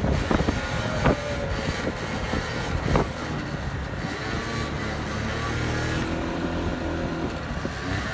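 Motor scooter engine running at a fairly steady throttle while the scooter is held up on its rear wheel in a wheelie, with a few short sharp knocks in the first three seconds.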